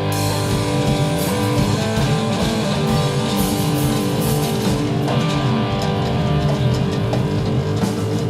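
Rock band playing live: guitar to the fore over bass and drums.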